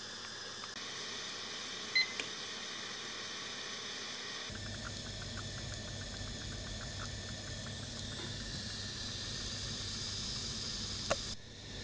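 Steady hiss of water heating in a steel saucepan, with a short electronic beep about two seconds in. From about a third of the way in, a low hum joins and a quick run of faint ticks follows for a few seconds, with a single click near the end.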